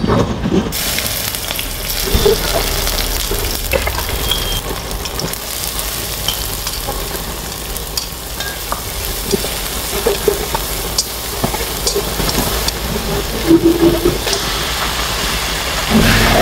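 Hot oil sizzling and bubbling in a wok, with wooden chopsticks clicking and scraping against the pan as shredded ginger and sliced lemongrass are stirred in. The sizzle is steady, broken by short clicks.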